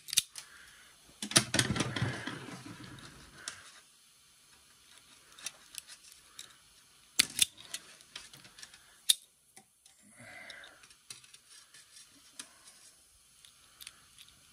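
Self-adjusting wire stripper clicking as its jaws grip and strip insulation off wire ends, with the wire rustling as it is handled. The loudest click comes about a second in, followed by a couple of seconds of rustling, with a few more sharp clicks later.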